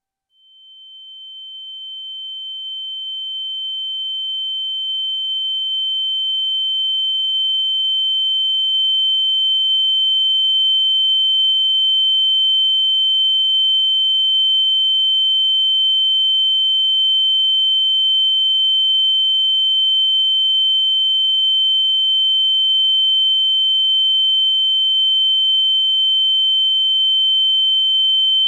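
A steady, high-pitched electronic sine tone that swells in over the first several seconds and then holds unchanged at one pitch.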